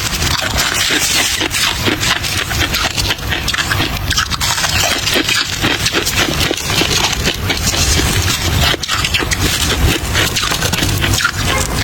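Close-miked crunching and chewing of soft frosty ice: a dense, continuous crackle of many small crunches.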